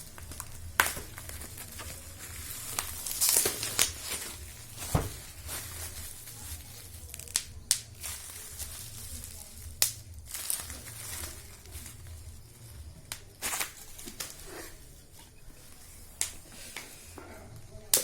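Keyboard packaging being handled and opened: plastic wrap and paper crinkling and tearing, with scattered sharp taps and clicks over a low steady hum.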